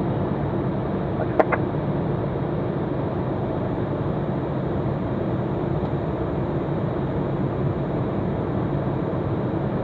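Steady cockpit noise of an Eclipse 500 light jet in flight on approach: an even drone of its twin turbofan engines and airflow.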